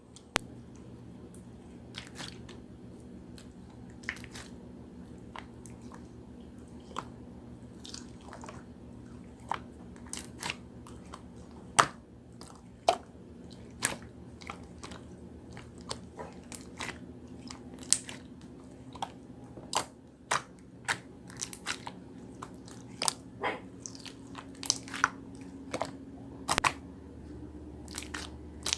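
Irregular sharp clicks and crunchy taps, about one or two a second, over a low steady hum.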